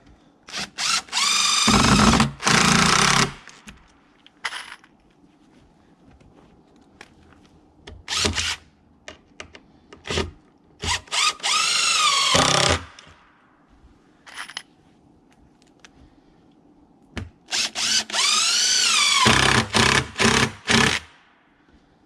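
Cordless impact driver driving screws into plywood: three longer runs and a few short bursts, the motor's pitch rising and falling within each run, with small handling knocks in between.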